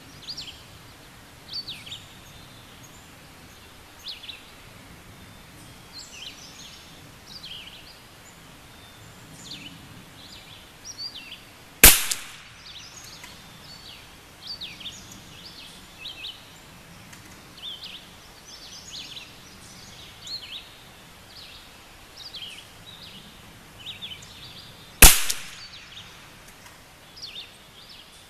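Two single shots from a Vudoo V22 rimfire rifle firing .22 LR Lapua Center-X, about 13 seconds apart, the first a little before halfway and the second near the end. Birds chirp on and off throughout.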